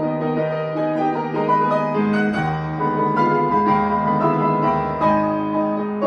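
Solo grand piano playing, with low notes held under a moving line of chords and melody.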